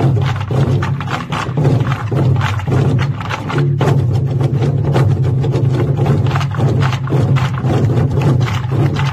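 Ensemble of Korean barrel drums (buk) on stands beaten together in a fast, dense, loud roll with a deep rumble underneath, broken by a brief pause about three and a half seconds in.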